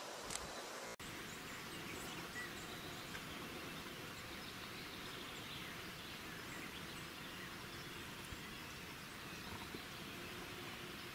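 Steady outdoor ambient hiss with a few faint, scattered bird chirps. It drops out for an instant about a second in.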